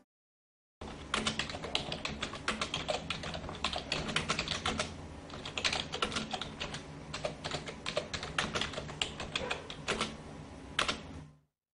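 Typing sound effect: rapid, irregular keystroke clicks over a low steady hum. They start about a second in and stop just before the end.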